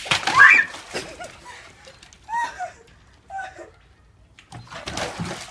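Thin sheet ice cracking and breaking, with water splashing, as rubber boots step through it, at the start and again near the end. Short cries from a girl in between.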